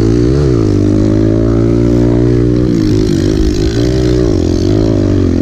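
Kawasaki KLX pit bike's single-cylinder four-stroke engine running under throttle, heard up close from the bike being ridden. The pitch climbs briefly about half a second in, then dips and picks up again a few times around three to four seconds in as the throttle is eased off and rolled back on.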